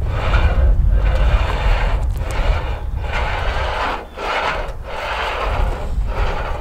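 Wuco hand roller bender being worked along the edge of a standing seam metal roof panel, bending the edge up: a scraping, rolling metal sound in short strokes about once a second, over a steady low rumble.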